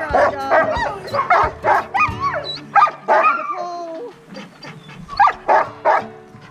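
A yard of chained sled dogs barking and yipping together, many calls overlapping, thinning after about four seconds to a few scattered barks.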